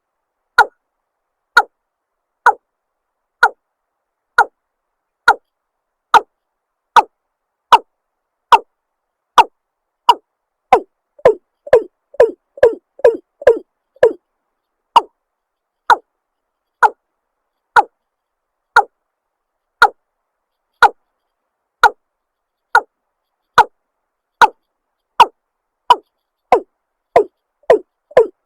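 Watercock calling: a long series of short, hollow notes about one a second, quickening to a rapid run of about three a second in the middle, then slowing again and speeding up once more near the end.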